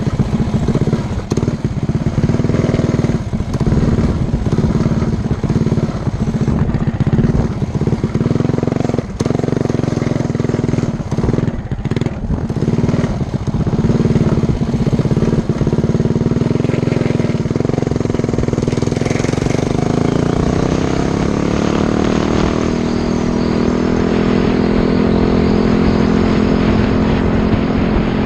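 Coleman CT100U mini bike's Predator 212 Hemi single-cylinder four-stroke engine running under way, its note dipping again and again as it is ridden over rough ground. About twenty seconds in, the engine pitch rises smoothly and then holds steady at a higher speed.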